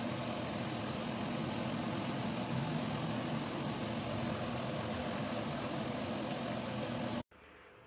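Steady cooking noise from a wok of long beans and tofu stir-frying on a running stove, an even hiss with a low hum under it, cutting off suddenly near the end.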